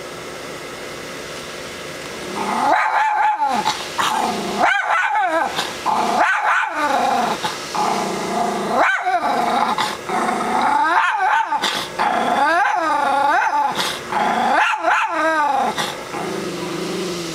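A schnoodle growling and barking in about seven loud bouts, starting a couple of seconds in and spaced a second or two apart. The dog is alarmed by an inflatable Grinch rising out of a chimney decoration. A steady low hum runs underneath.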